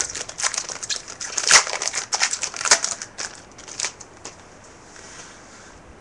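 A trading-card pack wrapper crinkling and crackling as it is torn open and handled, in quick irregular crackles that die down about four seconds in.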